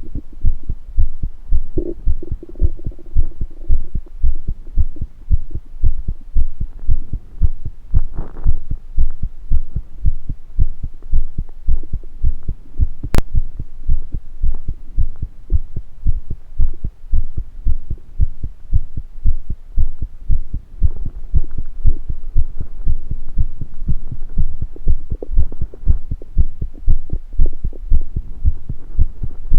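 Human heartbeat thumping in a steady, even rhythm, with stomach rumbling over it: a short low growl about two seconds in and gurgles around eight seconds and again past twenty seconds. A single sharp click near the middle.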